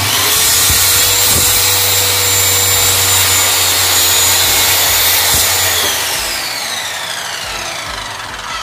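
Bosch GKS 140 corded circular saw running at full speed as its blade cuts through a wooden plank. About six seconds in, the motor slows down with a falling whine as the blade spins down.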